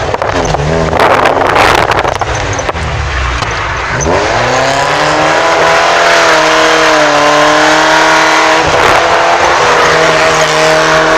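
Modified Chevette's engine revving hard, heard from inside the cabin, with its tyres squealing as the car is thrown through drift maneuvers. The pitch swings down and up in the first few seconds, then climbs and holds high and steady as the car is held in a slide.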